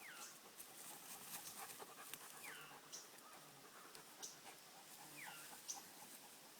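Faint dog panting with light rustling of fern fronds, and three short falling calls about two and a half seconds apart.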